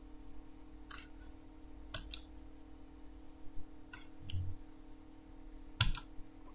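Computer mouse button clicks: a single click, then three pairs of quick clicks, the last pair near the end the loudest. A steady low electrical hum runs underneath.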